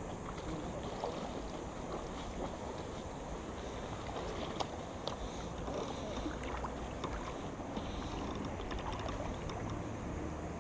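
Water moving and lapping around a boat hull, with scattered small knocks and clicks.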